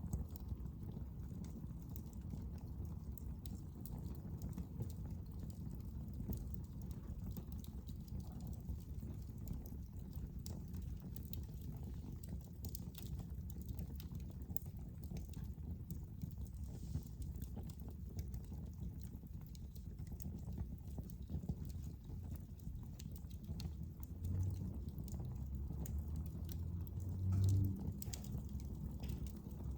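Wood fire burning in a fireplace: irregular crackles and pops over a steady low rumble of the flames, with a louder low rumble swelling near the end.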